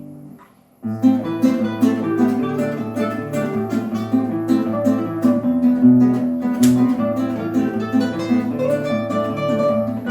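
Instrumental break of a song, with strummed and plucked strings over a steady bass line, starting after a short silence about a second in.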